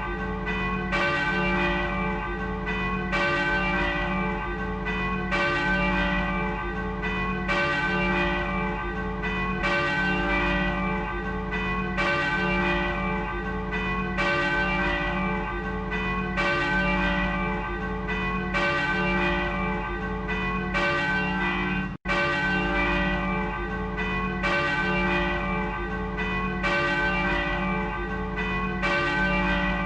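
The Vižinada church bell tolling steadily, about one stroke a second, each stroke ringing on into the next with the same set of tones. The sound cuts out for an instant about two-thirds of the way through.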